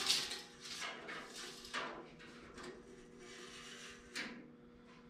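Steel tape measure blade sliding and scraping along the pickup bed: a run of short scrapes in the first two seconds, then one more about four seconds in.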